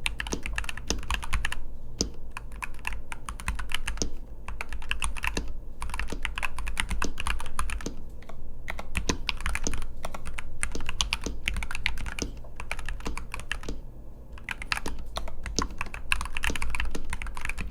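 Typing on a NuPhy Halo75 mechanical keyboard with Gateron G-Pro 2.0 Red linear switches: quick runs of keystrokes broken by a few short pauses.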